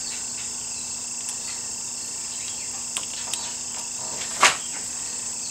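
Steady high insect chirring in the background, with a few small clicks and one sharper tap about four and a half seconds in as the plastic cover is set back onto the motorcycle's handlebar brake fluid reservoir.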